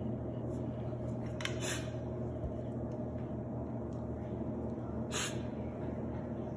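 A steady low mechanical hum, with two short breathy hisses, one about a second and a half in and another about five seconds in.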